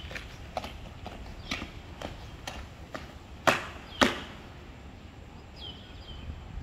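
Drill boots marching on asphalt at about two steps a second, ending in two loud foot stamps about three and a half seconds in as the marcher halts and comes to attention.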